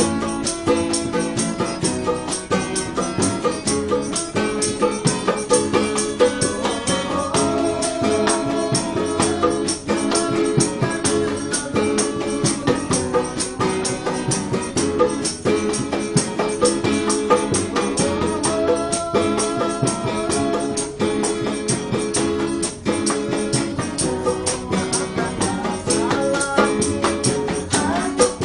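Acoustic dangdut played on two strummed acoustic guitars with a plastic bucket beaten by hand as a drum, keeping a fast, steady beat. A man's voice sings the melody in places.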